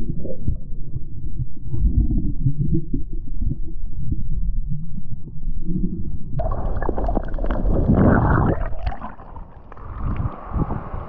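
Muffled low rumbling and gurgling of water heard through a camera held underwater in shallow sea. About six seconds in the camera breaks the surface: a brighter rush of splashing water, then a quieter open-air water hiss.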